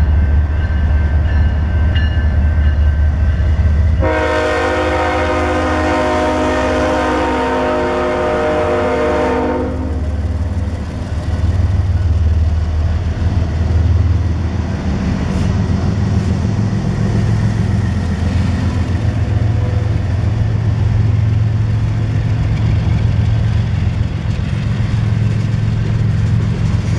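Diesel freight locomotives passing with their engines running in a steady low rumble; the air horn sounds one long chord from about four seconds in until nearly ten seconds, then the freight cars keep rolling by with a clattering rumble of wheels on rail.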